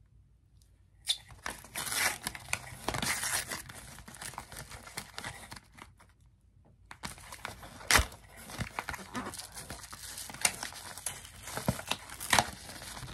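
Paperboard box of a makeup palette being pried and torn open by hand with fingernails: irregular crinkling and tearing with sharp clicks and snaps. There are quiet pauses about a second in and again around the middle.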